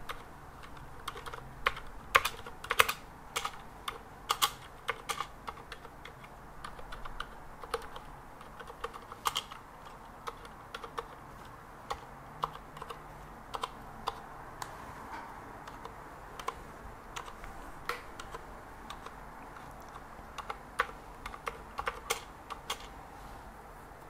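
Typing on a freshly built Tex Yoda II mechanical keyboard with Cherry MX Silent Red switches, tried out to check that it works. Keystrokes come irregularly, singly and in short runs with pauses between.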